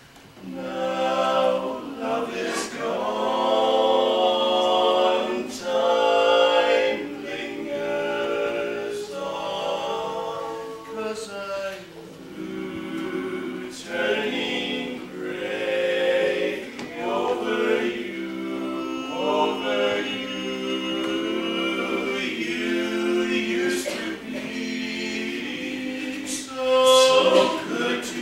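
A four-man barbershop quartet singing a cappella in close four-part harmony, holding chords that change every second or so. The voices come in about a second in, after a brief pause.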